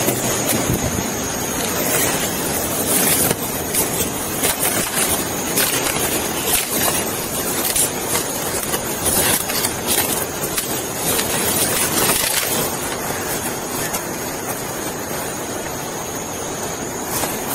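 Scattered clicks, knocks and rustling as items are handled inside a patrol car close to a body-worn camera, over a steady noisy hum.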